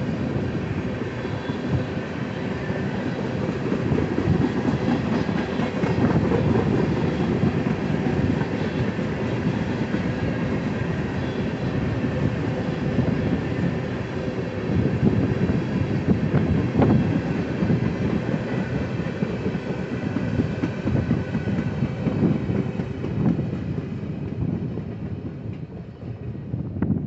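BNSF freight train's cars rolling past at close range: a steady rumble of steel wheels on rail with clicking over the rail joints. The sound thins and fades near the end as the last tank car passes.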